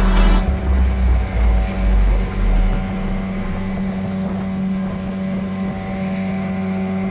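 Outboard motor of a fishing panga running steadily at speed, a constant engine hum with water rushing past the hull. Wind buffets the microphone in low rumbles during the first three seconds.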